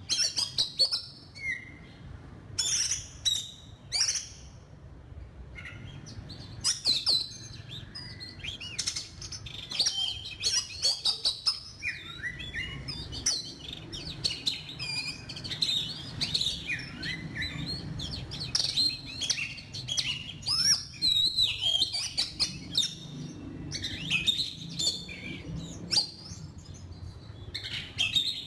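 Oriental magpie-robin singing: a fast, varied run of short whistled and chirping notes. The notes come sparsely for the first few seconds and are near-continuous from about six seconds in.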